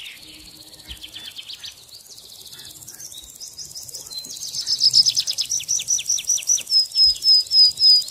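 Birds calling outdoors. From about halfway through, one bird sings a loud run of fast repeated sweeping notes that grows louder, then slows into shorter, evenly spaced repeated notes near the end.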